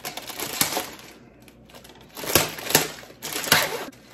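Plastic wrapper of an Oreo cookie pack crinkling as it is torn open and pulled apart, in several bursts of rustling, the loudest in the second half.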